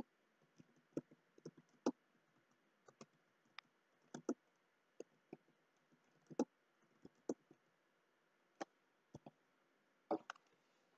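Faint computer keyboard typing: slow, irregular keystrokes clicking one at a time.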